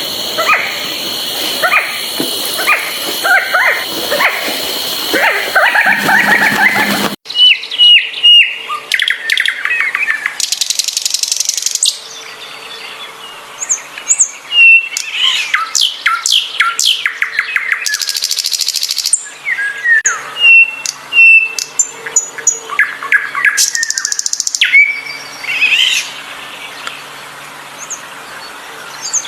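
Songbirds chirping and singing: a dense run of chirps, then about seven seconds in a different bird recording takes over with repeated sharp whistled notes and fast buzzy trills.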